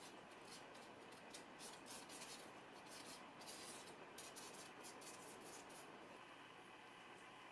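Faint scratchy strokes of a flat hog-bristle brush scrubbing thin oil paint onto paper, several short strokes a second, fading out after about five seconds.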